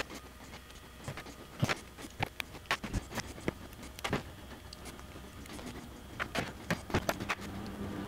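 Irregular small clicks and taps of metal crimp contacts and hand tools (needle-nose pliers, screwdriver) on a tabletop as the contacts are pushed down into Anderson Powerpole plastic housings.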